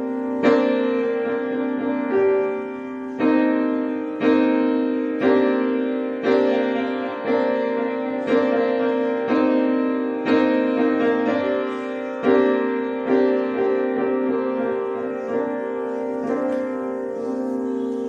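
Instrumental piano music: chords struck about once a second, each ringing and fading before the next.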